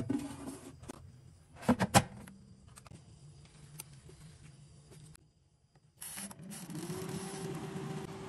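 Air fryer basket being slid into the fryer, with a few sharp clunks about two seconds in as it seats. Near the end the air fryer's fan motor starts up, its hum rising in pitch and settling into a steady whir.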